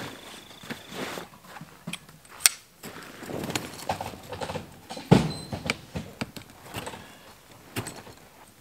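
A canvas swag being unrolled and pitched: rustling and handling of heavy canvas, with scattered clicks and knocks from its frame poles. There is a sharp click about two and a half seconds in and a louder thump about five seconds in.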